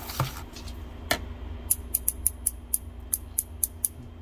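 Olsa 3/8-inch-drive, 90-tooth swivel-head ratchet being worked by hand, its pawl clicking fine and evenly about five times a second for a couple of seconds. A single knock comes about a second in.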